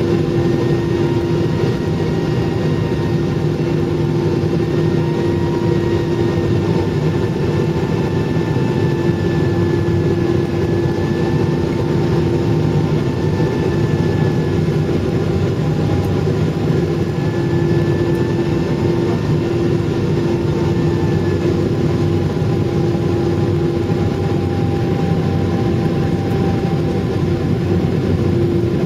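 Jet airliner cabin noise on final approach: a steady engine and airflow rumble with a constant hum and a few higher engine whines that drift slightly in pitch.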